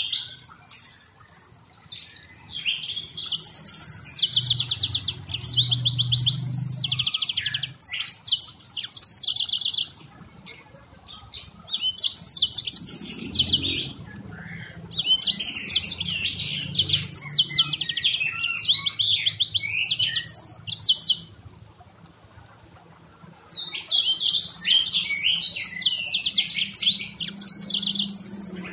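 Yellow-fronted canary singing long phrases of fast, high trills and chirps. The song pauses briefly after the first second and again about three-quarters of the way through.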